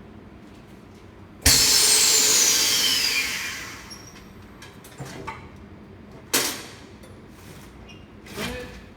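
Vacuum packing machine venting: a sudden loud hiss of air with faint falling whistles, fading out over about two seconds. A few short sharp knocks follow.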